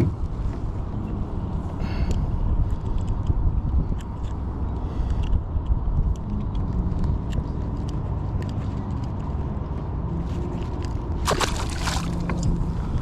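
Water sloshing and gurgling against the boat over a steady low rumble, with a short splash near the end as a released speckled trout goes back into the water.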